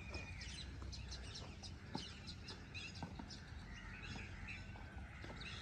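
Birds chirping in the background, with a few faint taps.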